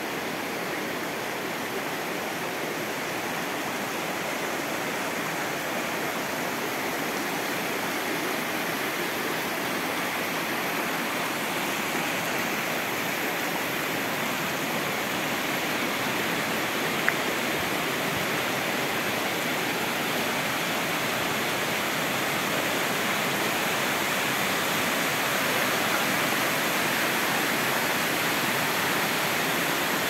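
The Nikhaloy waterfall: a steady, even rush of falling water that slowly grows a little louder, with one brief click a little past halfway.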